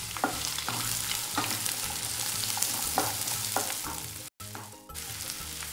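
Chopped onions sizzling in hot cooking oil in a non-stick pan, with a spatula scraping through them every half second or so as they are stirred. The sound cuts out briefly about four seconds in.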